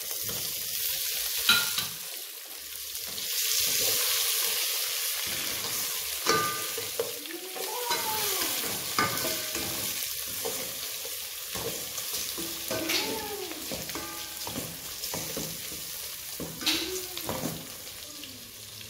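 Raw prawns sizzling in hot oil with onions and spices in a metal pot, stirred with a spatula that scrapes the pot, with occasional sharp taps. The sizzle is loudest a few seconds in, just after the prawns go in.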